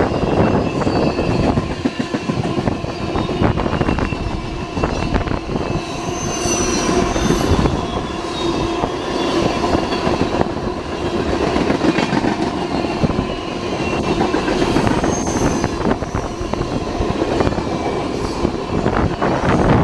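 Freight cars of a passing train rolling by close at speed: a steady rumble and rattle of wheels on rail with repeated clicks. High wheel squeal whistles in twice, about six and fifteen seconds in.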